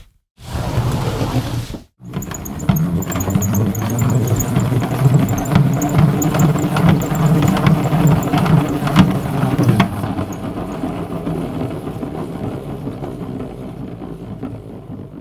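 A short burst of one effect, then after a brief break a motor-vehicle engine running with a heavy low rumble and rattly clicks. It is loudest for about eight seconds and then fades away.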